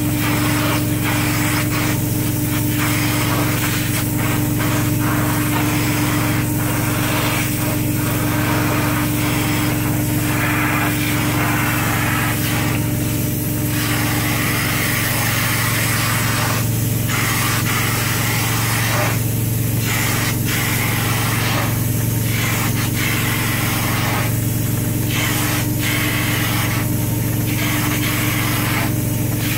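Truck-mounted hot-water extraction unit running with a steady hum, while its hand-held upholstery tool sprays and vacuums microfiber fabric with a rushing hiss. The hiss cuts out briefly at uneven intervals, between strokes of the tool.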